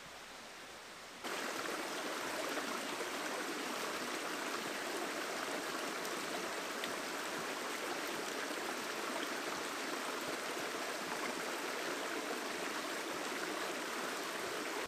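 Small rocky stream running over stones in little cascades: a steady rush of water that starts abruptly about a second in.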